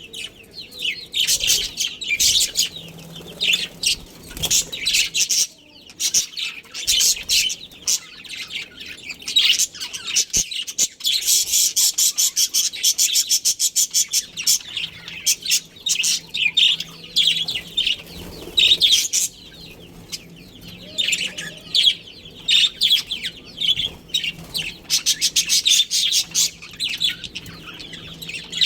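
Budgerigars chirping and chattering continuously, several birds at once, with a fast run of repeated high notes about halfway through.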